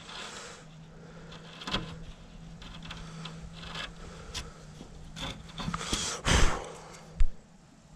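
A 25mm wood chisel pushed by hand, paring thin shavings from a hinge recess in a wooden door edge: quiet scraping with a few small clicks. About six seconds in there is a short louder rustle, and a little after seven seconds a single sharp knock, the loudest sound.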